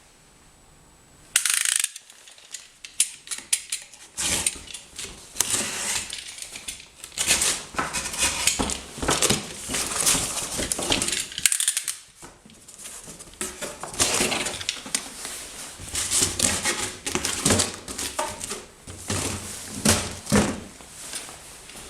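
Unpacking sounds: a cardboard box and its packaging rustling and being handled, with irregular clicks and knocks as parts are taken out and set down. It starts about a second in.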